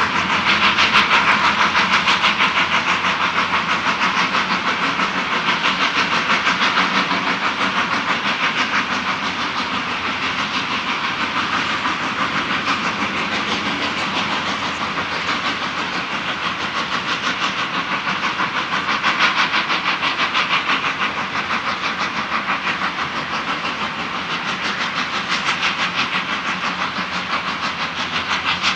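Three-foot-gauge steam locomotive working a train, its exhaust beating in a rapid, steady rhythm with hiss.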